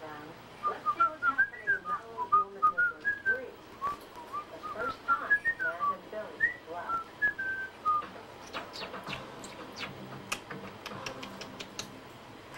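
Pet cockatiel whistling and chirping: a long run of short, quick whistled notes that rise and fall. About eight seconds in, the notes give way to a series of sharp clicks.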